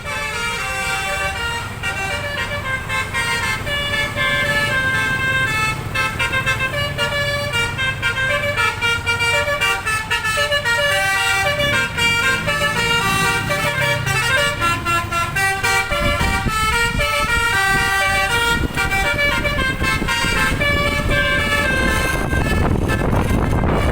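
Basuri telolet horn on a Wijaya Trans bus, its DAV module playing a tune of short, steady horn notes that step up and down in pitch. A low rumble runs underneath and grows louder in the last third.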